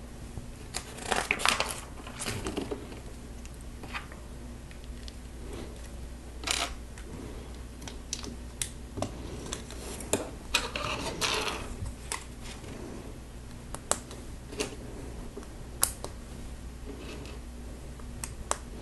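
Plastic Lego pieces clicking and clattering as they are handled, sorted through on the table and pressed together, in scattered irregular clicks over a faint steady hum.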